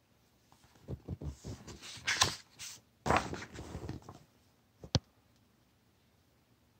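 Pages of a hardcover picture book being turned and handled, with paper rustling for about three seconds, then a single sharp click about five seconds in.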